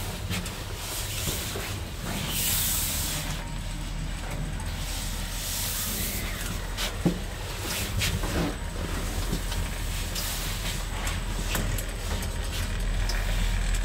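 NLM passenger elevator (2017, rated 1 m/s, 400 kg) travelling up the shaft, heard from inside the cab: a steady low hum of the ride, with two stretches of hiss and a few light clicks and knocks.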